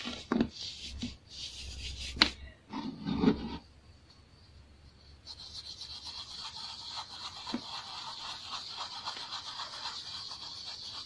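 Dried baking soda clumps crunched and crumbled between the fingers. A few sharp cracks come in the first few seconds, then a steady, fine gritty crumbling as the powdery chunk is rubbed apart between the fingertips.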